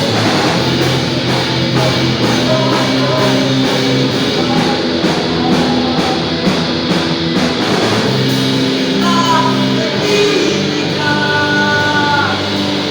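A punk rock band playing loud, with electric guitar.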